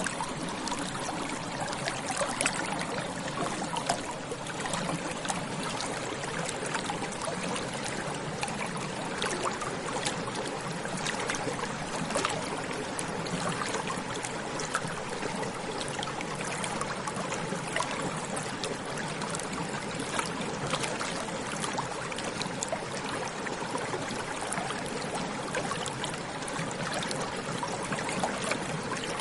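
Small stream flowing over stones: a steady babbling and trickling of water, with frequent small splashes and gurgles.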